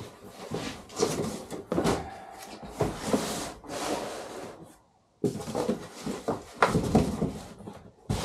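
A shipping box of engine parts being opened and unpacked by hand: irregular rubbing, scraping and knocks, with a short break a little past halfway.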